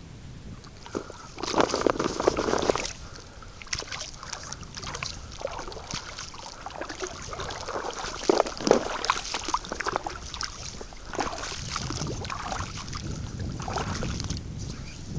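Legs wading through shin-deep water on a sand flat, with irregular sloshing and splashing steps, loudest in a burst about two seconds in.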